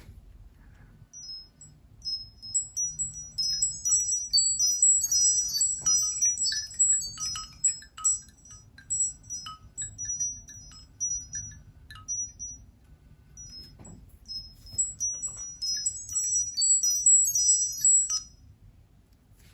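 Nokia C7-00 built-in ringtone of rapid, high, tinkling chime notes from the phone's small loudspeaker. The notes come in two cascading runs with a short break about two-thirds of the way through, and stop a second or so before the end.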